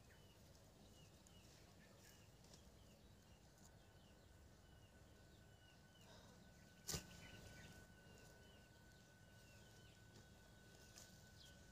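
Near silence outdoors: faint short high chirps repeating about twice a second, and a single brief knock about seven seconds in.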